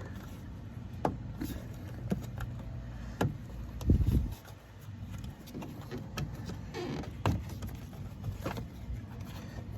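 Plastic trim being pried off a truck's rear door: scattered clicks and snaps of clips letting go, with a low thump about four seconds in, over a faint steady low hum.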